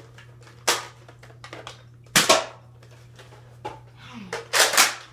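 Nerf Recon spring-powered dart blaster firing repeatedly: sharp plastic snaps about every one and a half seconds, several of them in quick pairs.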